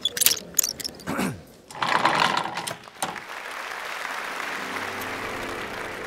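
Mechanical sound effects for an animated logo intro: a run of quick clicks, a pitch that falls steeply about a second in, and a loud rushing swish near two seconds, then a steady mechanical whir with faint steady tones joining it toward the end.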